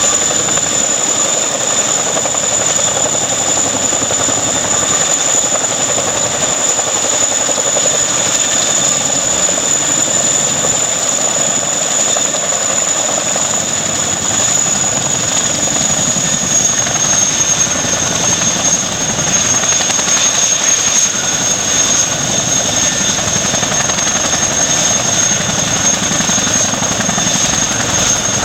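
Helicopter running loud and steady with a high turbine whine over the engine and rotor noise; the whine drops slightly in pitch about two-thirds of the way through.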